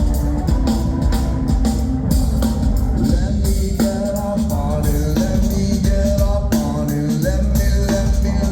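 Live rock band playing an instrumental stretch of a song: a steady drum-kit beat over deep bass, with repeating melodic notes on top.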